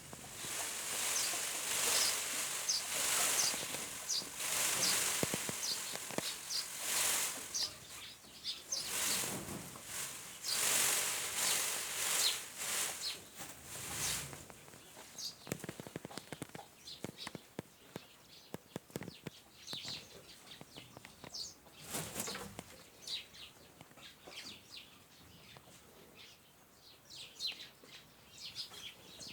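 Pied peafowl shaking its feathers in display: repeated bursts of rustling feather noise, dense for the first half and then sparser and quieter, with short high chirps throughout.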